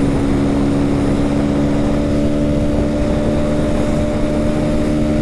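Motorcycle engine running at a steady, unchanging pitch, as when cruising at constant speed in one gear, over a low rumble.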